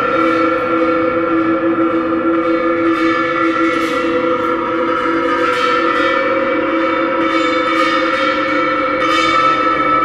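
Percussion-and-electronics music: a sustained drone of several steady ringing tones from bossed pot gongs and electronics. Faint bright shimmers come in about three seconds in and again near the end.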